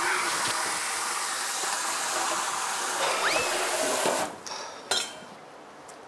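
Kitchen tap water running into a steel sink while dishes are rinsed, with dishes clinking; the water is shut off about four seconds in, followed by a single sharp knock.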